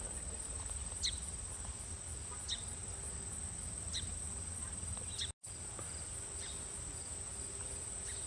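Steady high-pitched insect chorus from the summer meadow, with a short falling chirp about every second and a half and a low wind rumble underneath. The sound cuts out completely for an instant about five seconds in.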